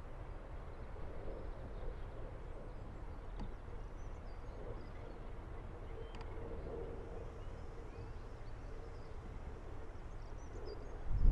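BR Class 45 'Peak' diesel locomotive's Sulzer twelve-cylinder engine running as it slowly approaches with a train of coaches: a fairly faint, steady low rumble with a held hum.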